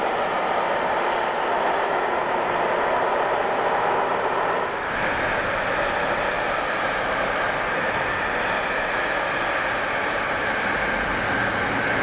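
A freight train of tank wagons rolling past with steady wheel-on-rail noise. About five seconds in the sound changes abruptly to a red double-deck regional train moving slowly alongside the platform close by, with a steady higher running noise.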